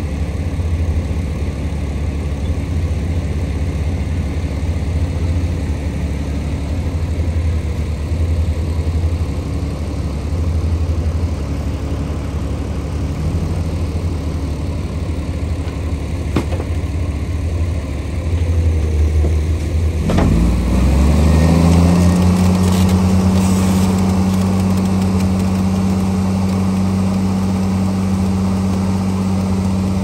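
Heavy diesel engines of a Komatsu excavator and bulldozer running steadily. About two-thirds of the way through, the engine note dips, then climbs and holds higher and louder, as one machine is throttled up under load.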